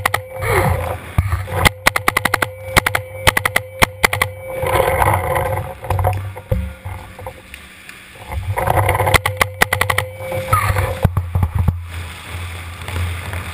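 Paintball markers firing rapid strings of shots: a long run of quick pops a couple of seconds in, then shorter strings about nine and eleven seconds in, with low rumbling handling noise between them.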